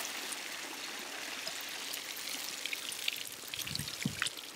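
Water pouring and splashing out of a Prowler 820 robotic pool cleaner as it is lifted from the pool, slowly tapering off to a trickle and drips. A couple of low thumps come near the end.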